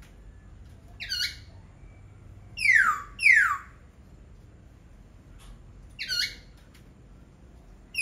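Laughingthrush calling: a short call about a second in, then two loud notes that sweep downward in pitch around three seconds in, and another short call about six seconds in.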